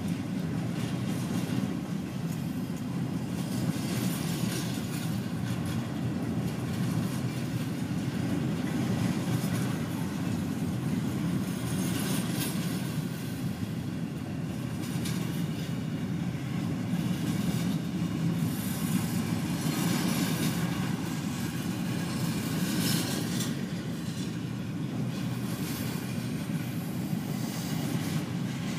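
Intermodal container cars rolling past on the rails: a steady rumble of steel wheels with irregular clicks and clacks over the rail joints, in heavy rain.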